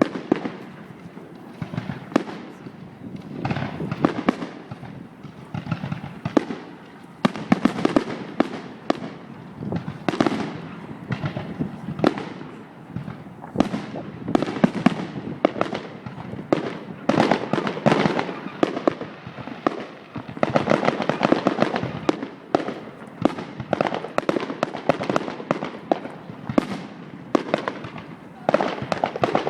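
Fireworks display: a dense, irregular barrage of bangs and crackling bursts, swelling into clusters every two or three seconds.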